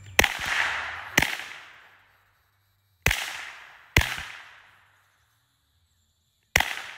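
Five suppressed .22 LR shots from a Glock 44 pistol fitted with a SilencerCo Sparrow suppressor: two about a second apart, a pause, two more about a second apart, then a last one. Each shot is a sharp crack that dies away over about a second.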